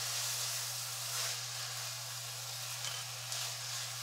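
Yakisoba noodles with offal and cabbage sizzling steadily in a hot frying pan as they are stir-fried, over a steady low hum.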